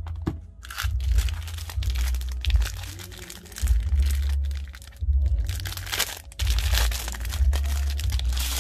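Plastic packaging crinkling and tearing in irregular bursts as it is opened by hand, with a low rumble of handling noise.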